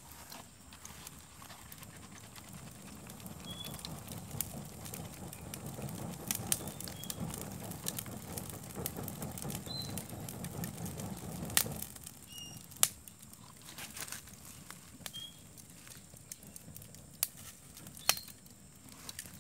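Wood fire catching in an outdoor wood-burning stove: sharp crackles and snaps from the burning wood over a low rushing noise that builds through the first half and cuts off suddenly with a loud snap a little past halfway.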